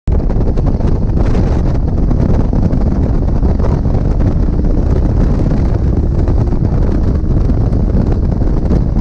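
Heavy wind buffeting on the microphone of an open-cockpit Locost 7 kit car at speed, with the car's engine running underneath as it accelerates.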